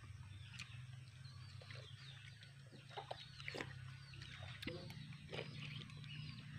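Faint birds chirping, with a few short clicks of spoons against bowls and soft eating noises as people eat noodle soup.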